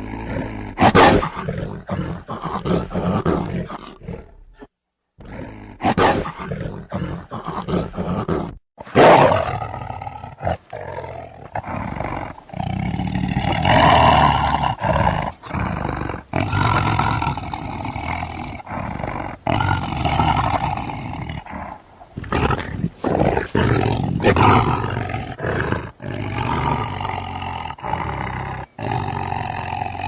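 Tiger roaring again and again, one loud roar after another. Two brief silent gaps break the run, about four and a half and nine seconds in, and the roars are longer and drawn out from about twelve seconds on.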